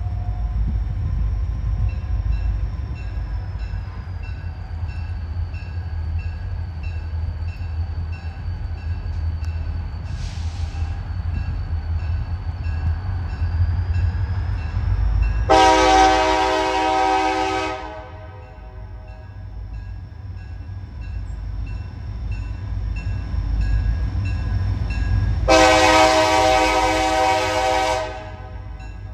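Locomotive horn of WE 109 sounding two long blasts about ten seconds apart, over the steady low rumble of the train.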